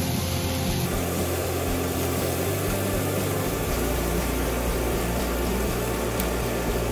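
Thinly sliced beef and onion sizzling steadily in a frying pan while being turned with chopsticks.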